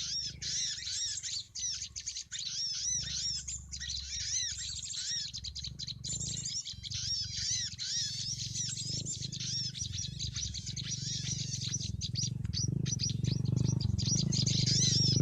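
Bar-winged prinias (ciblek) calling: fast, repeated high chirps, over a low steady rumble that grows louder near the end.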